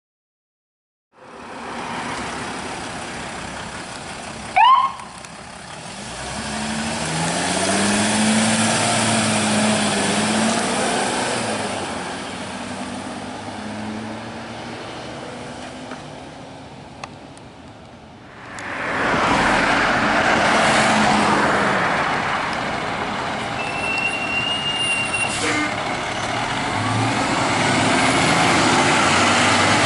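Diesel engines of fire apparatus revving as they pull away, with heavy truck road noise. About four and a half seconds in comes one short, very loud rising chirp, and from about two-thirds of the way through a louder steady rush as a ladder truck drives past.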